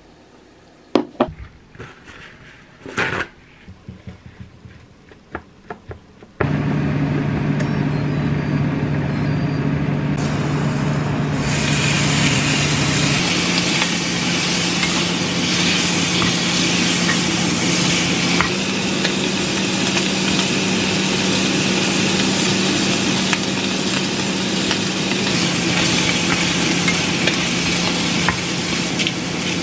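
A few light knocks and taps of kitchen handling. About six seconds in, smoked duck slices start sizzling loudly and steadily as they fry in a pan and are stirred with a wooden spatula, with a low steady hum underneath.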